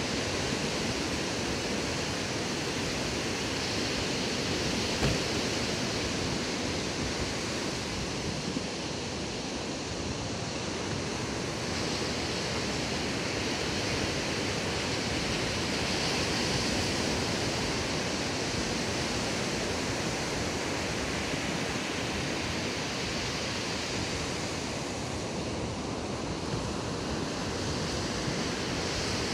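Ocean surf breaking and washing up a sandy beach: a steady rush of waves that swells a little now and then.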